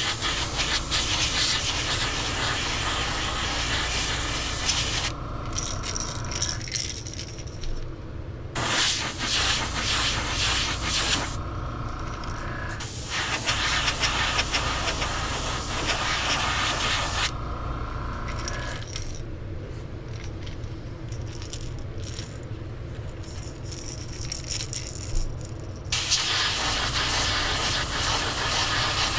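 Airbrush spraying a white base coat onto a crankbait, hissing in four long bursts of a few seconds each with short pauses between. A steady low hum runs underneath.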